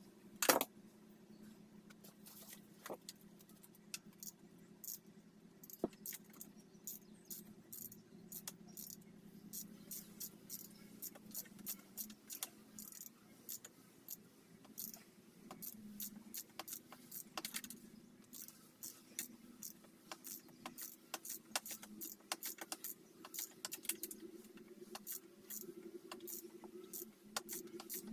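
Irregular metallic clicks and clinks of hand tools and small metal parts being handled during dirt bike reassembly, the sharpest about half a second in, over a steady low hum.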